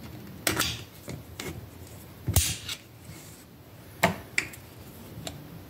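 A handful of short, sharp metallic clicks and clacks as the kick-starter shaft, return spring and small parts are fitted by hand into a Yamaha PW50's open clutch-side case. The loudest click comes about halfway through.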